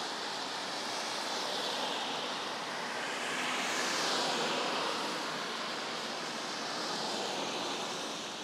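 Road traffic going by on a rain-wet street: tyre hiss that swells and fades, loudest about four seconds in.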